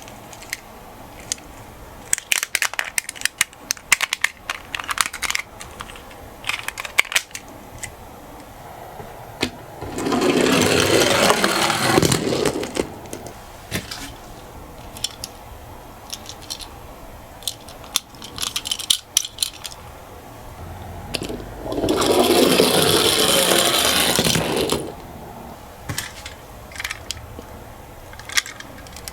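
Toy minicars clicking and clinking as they are handled and set down. Twice a car rolls down a slope, each run a steady rolling rumble of about three seconds.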